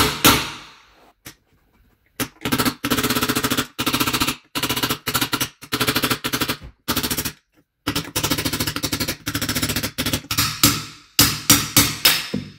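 Hammer blows on a tool driving the old mid bottom bracket bearing out of a BMX frame's bottom bracket shell, with metal-on-metal ringing. Runs of rapid taps give way near the end to a handful of harder single blows as the bearing is knocked out.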